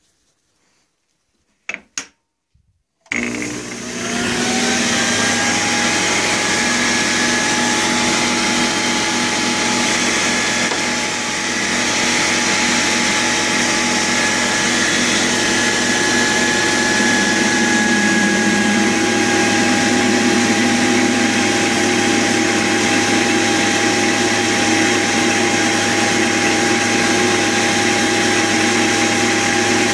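Two sharp clicks, then about three seconds in a small metal lathe starts up: its motor whine rises quickly to speed and the chuck and drive run steadily.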